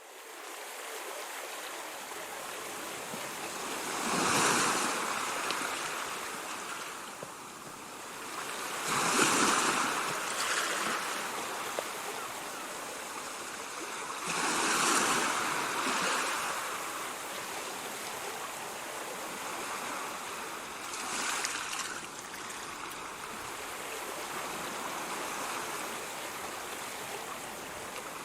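Ocean surf: a steady wash with a wave breaking and swelling louder about every five or six seconds, four times.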